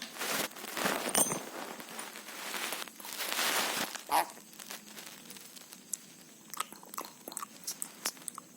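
A pet parrot crunching and biting food with its beak: two longer stretches of crunching in the first four seconds, then scattered small crunches and clicks.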